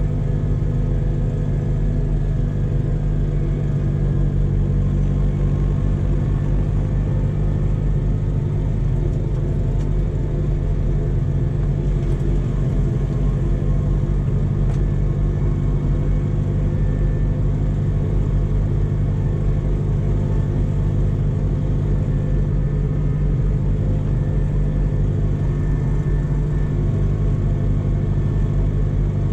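Tractor diesel engine running at a steady road speed, heard from inside the cab: an even, unchanging drone.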